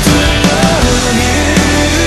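Rock power ballad by a full band playing loudly: drums hitting on a steady beat under guitars and a melodic line that bends in pitch.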